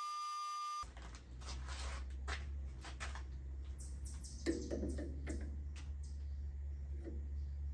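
Metal lathe running with a steady whine that cuts off abruptly under a second in. After that, a steady low hum under a series of light metallic clicks and knocks as a caliper is handled against the stopped steel test bar.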